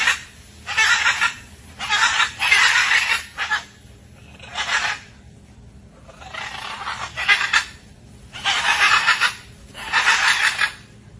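Animal screeches in a run of harsh, noisy bursts, each from half a second to about a second and a half long, with short pauses between, from a parrot-and-monkey fight.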